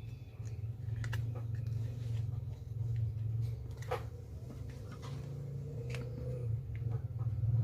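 Steady low electrical hum with a few light clicks and taps, about four in all, as small electronic components such as a resistor are handled.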